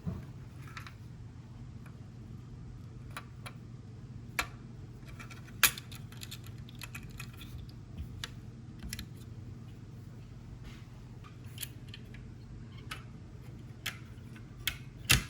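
Scattered small clicks and taps from a CPU and motherboard socket being handled, the sharpest about five and a half seconds in and just before the end, over a steady low hum.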